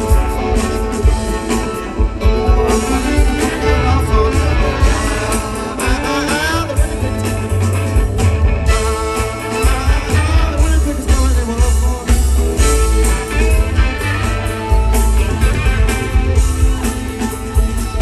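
Live band music with electric guitar, upright bass and drums, and a sung vocal over it.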